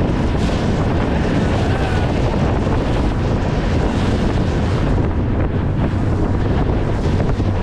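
Steady wind buffeting the microphone of an open speedboat running fast across the sea, over the drone of the boat's engine and water rushing along the hull.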